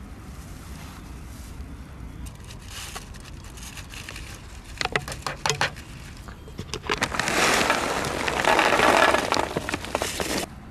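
An aluminium foil tray being handled and set down in dry grass, with a quick run of sharp clicks and taps about five seconds in. Then about three seconds of loud, crinkly rustling as the food is got ready, which cuts off suddenly.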